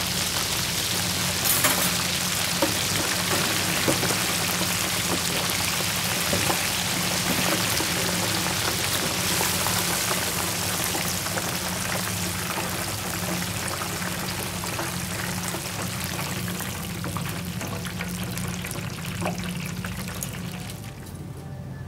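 King shrimps deep-frying in hot oil: a dense, crackling sizzle that thins out near the end.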